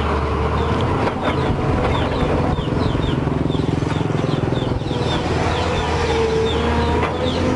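Volvo excavator's diesel engine running steadily as it works, with a steady, slightly wavering whine and a few brief knocks about a second in.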